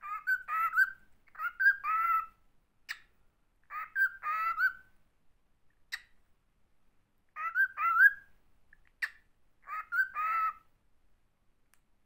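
Cockatiel chattering in several short warbled phrases of rising, gliding notes, with a few sharp clicks between them.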